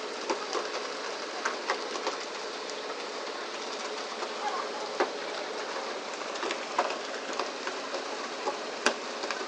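Steady rush of sea water and spray along the hull of a pole-and-line tuna boat, with irregular knocks and slaps as tuna are flung onto the deck, and one sharp crack near the end.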